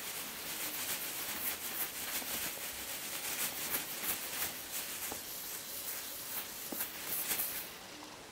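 Foil tinsel pom-pom cat toy rustling and crinkling as it is dragged and batted across a fabric sofa throw, a dense run of soft scratchy rustles that dies away near the end.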